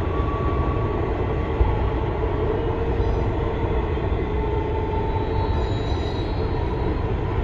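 Long freight train of double-stacked containers running past: a steady rumble of wheels and cars, with faint high wheel squeals now and then.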